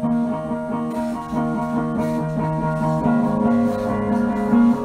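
Guitar music from a jam: chords picked or strummed in a steady pattern, shifting to a new chord about three seconds in.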